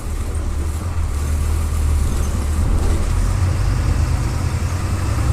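Turbocharged MWM 6.12 TCE six-cylinder diesel engine of a VolksBus 17-230 EOD city bus running under way: a steady low drone that grows stronger about three seconds in.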